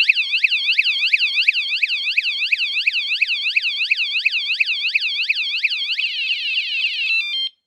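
Fosmon 113 dB motion-sensor bike alarm going off: a loud, fast rising-and-falling siren wail. About six seconds in it switches to a faster warble, then a few stepped beeps, and it cuts off abruptly near the end.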